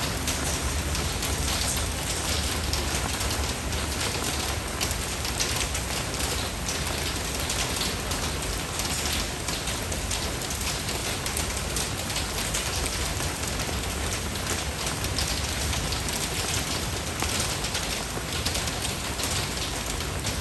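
Steady rain falling: an even hiss dense with small drop patters, with a low rumble underneath.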